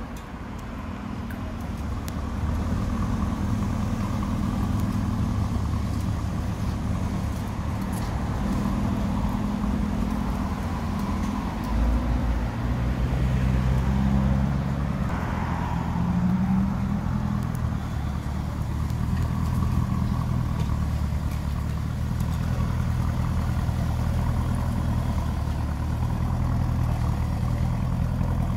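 Lamborghini Urus twin-turbo V8 idling and moving off at low speed, a steady low engine note with a short rise in revs about halfway through.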